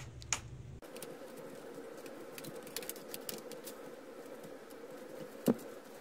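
Small plastic clicks and ticks as a plastic pry tool and fingers work the snap-in clips of a Lenovo ThinkPad W550s's bottom cover loose, with one sharper, louder snap about five and a half seconds in.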